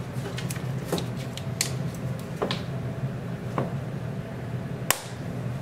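Plastic links of a cable carrier (drag chain) being handled and pressed together, giving a handful of scattered clicks and snaps as the yellow side pieces are popped back into place; the sharpest snap comes near the end. A low steady hum runs underneath.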